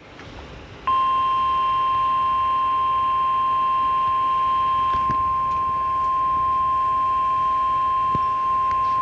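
Emergency Alert System warning alert tone: a loud, steady single tone of about 1 kHz. It comes on abruptly about a second in and holds without change, the attention signal that comes before a National Weather Service severe thunderstorm warning message.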